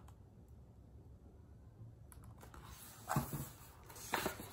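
Near silence, then twice near the end a short, soft rustle of a hardcover picture book's paper pages being handled and turned.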